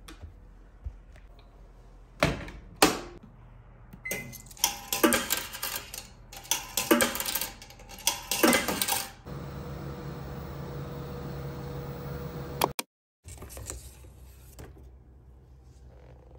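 Coins fed one after another into the coin slot of a coin-operated washer-dryer, a series of sharp metallic clicks and clunks. After about nine seconds a steady machine hum takes over, then cuts off abruptly.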